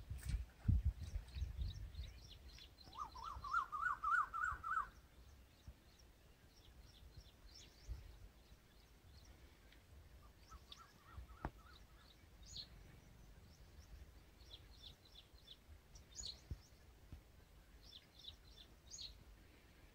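Small birds chirping and twittering throughout, with a louder run of quick, repeated rising notes from one bird about three to five seconds in. A low rumble at the start.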